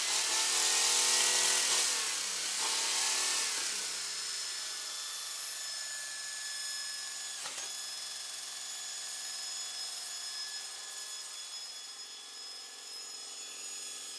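Chevrolet Opala Caravan engine running loud, its pitch rising and falling in a brief rev during the first few seconds, then settling to a steady idle that slowly gets quieter. A single sharp click comes about halfway through.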